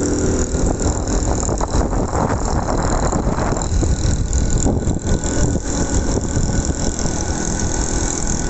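Vehicle noise heard while riding through city traffic: a steady rumble of engine and road with continual mechanical rattling.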